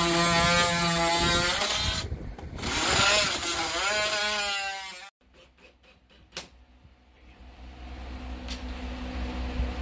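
Cordless oscillating multi-tool running with a steady high whine as it cuts through a subfloor, stopping about two seconds in. It runs again briefly and its pitch falls as it winds down near the middle. A few clicks follow, then a faint low hum builds toward the end.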